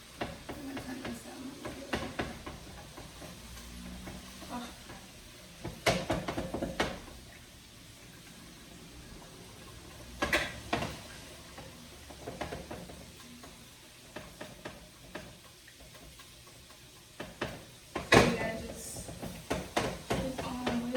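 A whisk scraping and clinking in a saucepan as a butter, flour and half-and-half sauce is whisked to break up clumps, with a few sharper clatters of kitchen utensils and pans, the loudest near the end.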